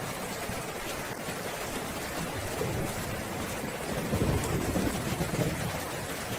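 Steady rain falling, with a low roll of thunder that builds a little under halfway in and is loudest just past the middle before easing off.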